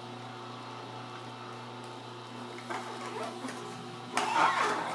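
Electric juicer motor running with a steady hum while fruit is pushed down the feed chute with the plunger. About four seconds in comes a louder burst of grinding as the fruit is crushed.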